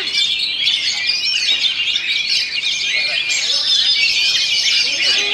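Oriental magpie-robin singing a fast, unbroken stream of chirps, trills and short whistles, packed tightly with no pauses and mixing in a run of mimicked calls.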